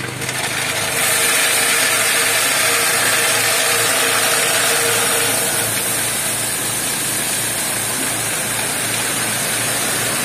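A mini dump truck tipping its load: gravel sliding and pouring out of the raised bed in a steady rush, rising about a second in, over the truck's engine running.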